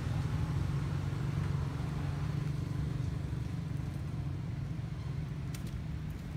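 Steady low engine rumble, with a couple of sharp clicks about five and a half seconds in.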